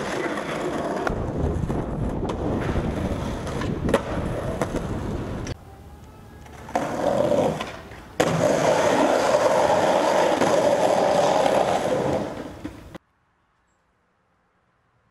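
Skateboard wheels rolling on pavement, with several sharp clacks of the board in the first few seconds. After a quieter moment comes a longer, loud stretch of rolling, which stops abruptly about two seconds before the end.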